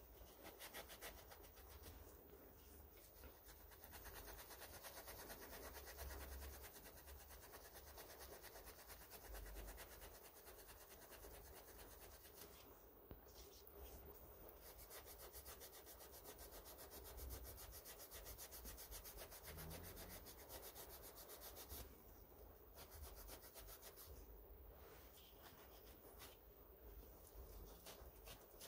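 Green abrasive scouring pad scrubbed back and forth over a metal lathe's rusty bed and slideways: a faint, steady rubbing and scratching.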